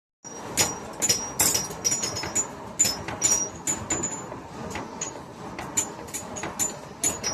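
Hand hammer blows on iron over an anvil during hand forging: irregular strikes, about two or three a second, each with a short high metallic ring.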